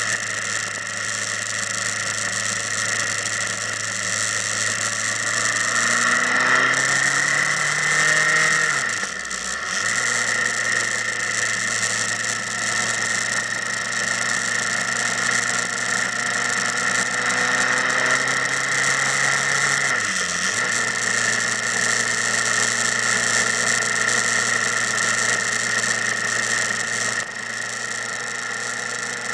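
Motorcycle engine running under way over steady wind and road noise. The revs climb about six to nine seconds in and dip sharply and briefly twice, near nine and twenty seconds in.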